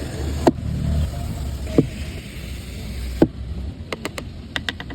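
Three sharp knocks about a second and a half apart, then a quick run of lighter clicks, over a low rumble that fades out after about three and a half seconds.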